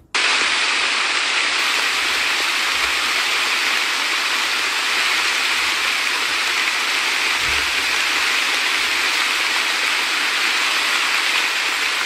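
A loud, steady, even hiss that starts abruptly and holds unchanged throughout, rushing like heavy rain or falling water.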